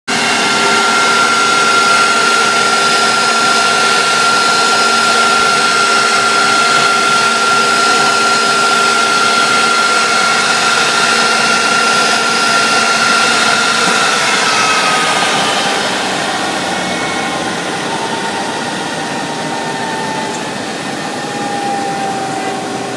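CNC router spindle whining at high speed while its bit mills a wooden door panel, with a steady hiss of cutting through the wood. The whine holds one pitch, then slides steadily lower over the last several seconds.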